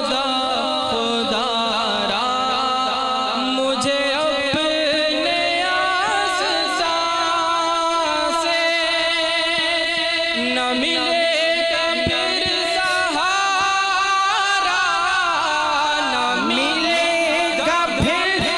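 A male voice chanting unaccompanied in a melismatic Arabic devotional style, sustaining long, richly ornamented notes that waver and glide, with a steady held lower tone underneath, heard through a sound system.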